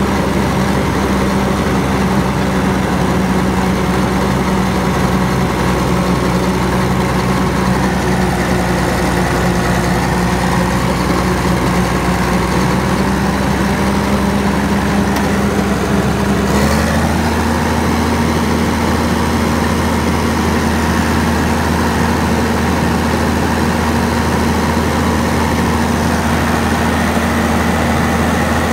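Caterpillar D6 bulldozer's 3306 six-cylinder diesel engine running steadily at idle. About 17 seconds in there is a click and the engine speed steps up a little and holds: the throttle is raised so the alternator, which doesn't charge at low rpm, starts charging the batteries.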